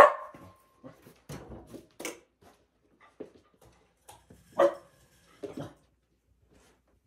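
A dog barking a few times, the loudest barks at the very start and about four and a half seconds in, with scattered knocks and taps between.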